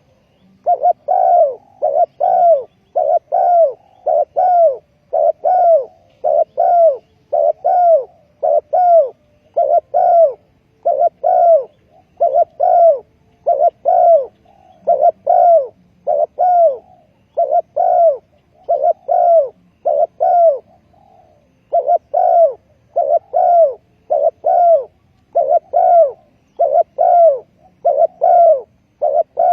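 Spotted dove cooing loudly and over and over, short low notes grouped in tight phrases of two or three that repeat about every second and a half, with one brief pause about two-thirds of the way through.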